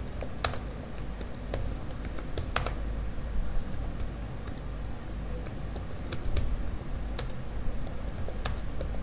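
Computer keyboard being typed on: irregular, unhurried keystroke clicks over a low steady hum.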